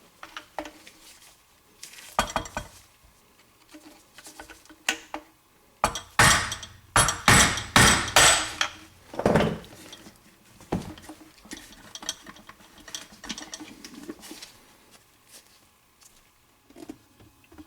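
Hammer striking a flathead screwdriver to knock out the capped dishwasher drain inlet on a new garbage disposal: a few scattered metallic taps, then a quick run of about eight hard strikes about six seconds in, then a few more lighter hits.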